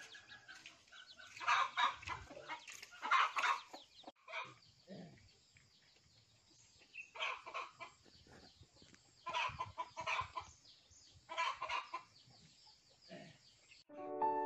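Chickens clucking in short bursts every second or two, with quiet gaps between. Piano music begins just before the end.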